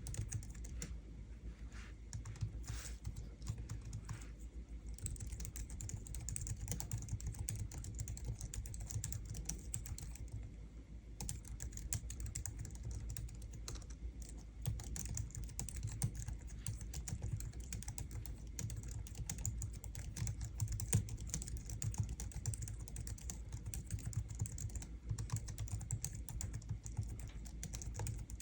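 Typing on a Logitech MX Keys low-profile scissor-switch keyboard: a steady, quick stream of soft key clicks, with a short pause about ten seconds in.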